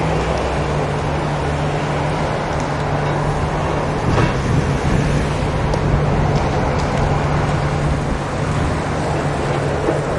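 A heavy engine drones steadily under a rushing noise, with a few faint scattered ticks.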